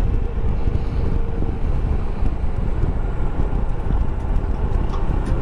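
Wind buffeting the camera's microphone while riding a SYM Cruisym 250 scooter, with its single-cylinder engine running steadily underneath.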